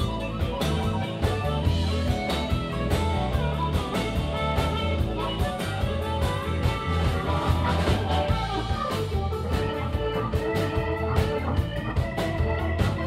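Live blues band playing an instrumental break: amplified harmonica cupped to a handheld mic, electric guitar, electric keyboard and a drum kit keeping a steady beat.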